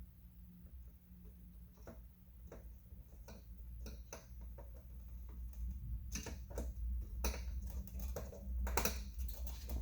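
Scattered light clicks and taps of small parts and hand tools being handled while refitting a car side-mirror cap, coming more often and louder in the second half. A steady low hum runs underneath.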